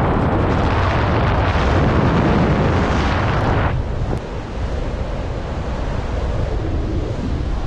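Wind rushing over the microphone of a paraglider pilot's harness-mounted camera in flight: a loud, buffeting rush that suddenly drops to a softer, duller rush a little under four seconds in.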